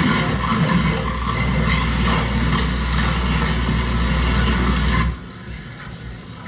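Live harsh noise music from table-top electronics: a dense wall of noise over a heavy low drone, with a faint high whistle-like tone in the middle part. About five seconds in it cuts off suddenly to a much quieter hiss.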